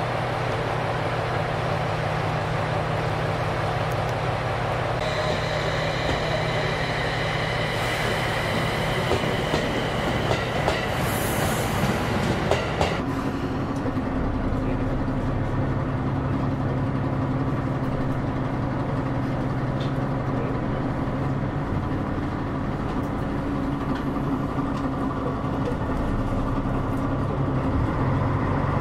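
Kitakami Line diesel railcar running, with a steady engine drone and wheels clicking over the rail joints. A high whine sounds over it through the first half and cuts off suddenly about halfway through.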